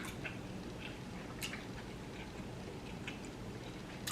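Close-up chewing of chewy tteokbokki rice cakes, heard as scattered soft, wet mouth clicks and smacks over a faint steady low hum.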